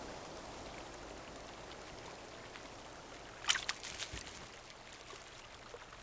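Faint, steady trickle of a partly frozen stream, with a short run of sharp clicks about three and a half seconds in.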